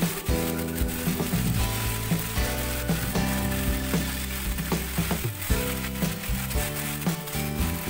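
Vegetables and sauce sizzling in a hot frying pan over a high flame, with a few scrapes as a silicone spatula starts stirring them, under background music.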